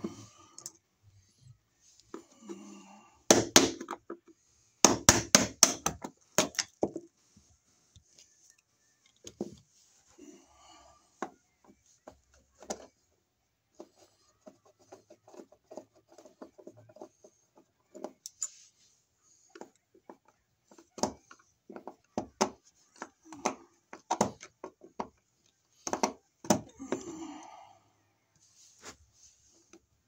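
Screwdriver scraping and prying at a painted-over wall outlet's cover plate and mounting screws. Bursts of sharp clicks and scrapes come about three seconds in and again around five to seven seconds, then a longer run of knocks and taps in the last third.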